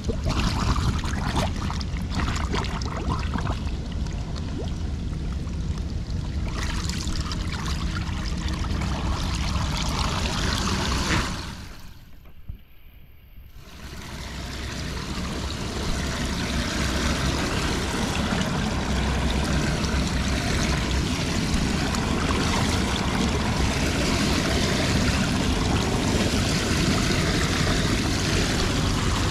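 Muddy floodwater splashing and pouring down through a metal storm drain grate as a gloved hand sweeps leaves and debris off it, the blockage being cleared. The rush drops away briefly about twelve seconds in, then builds back to a steady gush.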